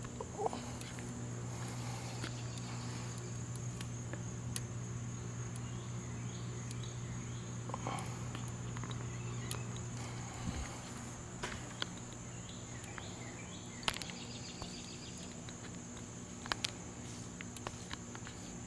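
Quiet outdoor ambience: a steady insect chorus with a low hum that stops about halfway through, and scattered light clicks and ticks.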